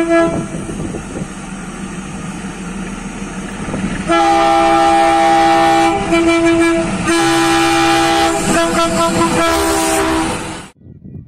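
Diesel locomotive running past close by, sounding a short horn toot at the start. From about four seconds in it gives a long, loud multi-tone horn blast with two brief breaks, which cuts off abruptly near the end.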